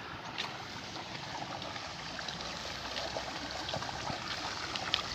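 Water running and trickling over a small concrete weir in a fish-pond inlet channel, a steady splashing flow, with a few faint clicks.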